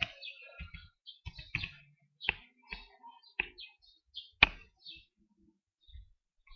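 A series of irregular sharp clicks and knocks, about nine in all, the loudest about four and a half seconds in.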